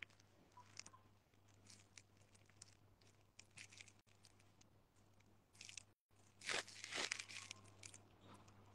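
Near silence: faint scattered clicks and rustles, with a somewhat louder rustle about six and a half seconds in, over a low steady hum.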